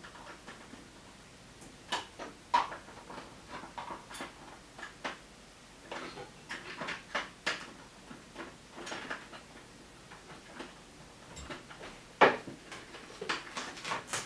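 Someone rummaging through tool drawers: irregular clicks, knocks and rattles of objects being moved, with one louder knock near the end.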